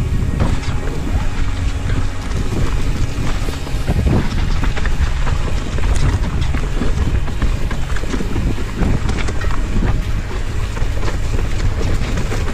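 Wind rushing over a helmet-mounted action camera's microphone as a mountain bike descends fast on a rough dirt trail, with steady low rumble and frequent clattering knocks from the bike over the bumpy ground.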